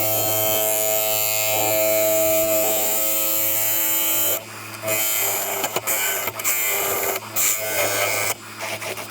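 Wood lathe running while a turning tool cuts the spinning poplar blank: a steady cutting hiss over the motor hum for about four seconds, then shorter cuts on and off as the tool is lifted and put back to the wood.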